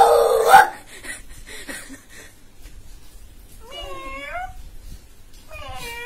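A boy imitating a cat: two drawn-out, wavering meows in the second half, the second running on past the end. A short loud vocal burst comes right at the start.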